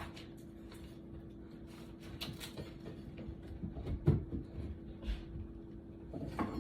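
Scattered light knocks with one heavier thump about four seconds in, over a steady low hum.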